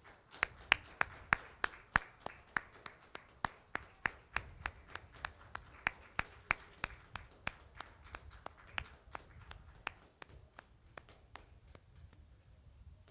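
Steady rhythmic hand clapping, about three sharp claps a second, loudest in the first couple of seconds and fading out near the end.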